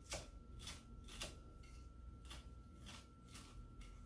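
Chef's knife chopping fresh cilantro on a wooden cutting board: a run of light, irregular chops, about two a second.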